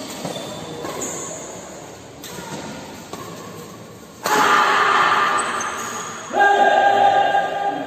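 Players shouting during a badminton rally, with two loud held yells: one about halfway through and another about two seconds later.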